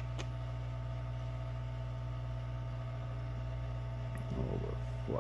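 Steady low electrical hum and drone of running bench equipment, with a few faint brief sounds near the end.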